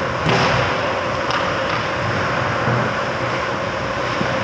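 Ice rink during play: a continuous scraping hiss of skate blades on the ice with a few sharper scrapes, over a faint steady hum.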